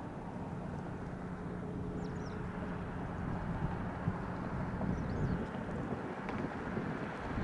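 Boat engine running steadily under wind noise on the microphone, with a low hum that fades out about halfway through. A few faint short high chirps sound about every three seconds.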